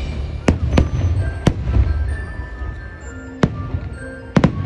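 Aerial fireworks shells bursting in sharp bangs, six of them, the last two in quick succession near the end, over the show's music.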